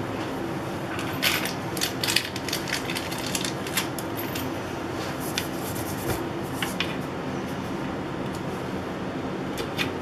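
Kitchen cabinet doors being handled, opened and pushed shut, giving a run of light clicks and knocks in the first few seconds and a few more later, over a steady background hum.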